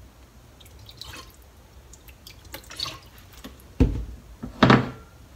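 Sake pouring from a bottle into a metal tablespoon and dripping into a pan of water, faint trickling and small ticks, then two sharp knocks about a second apart near the end.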